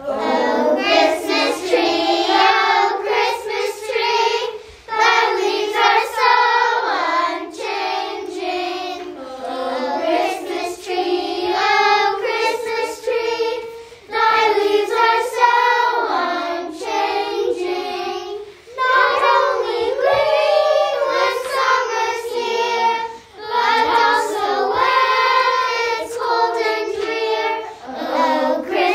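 Young children singing a Christmas carol together, phrase after phrase with short breaks between.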